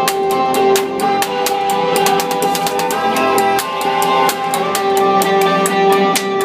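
Live band playing an instrumental passage: guitars with sustained melodic notes over a steady beat of drum strikes.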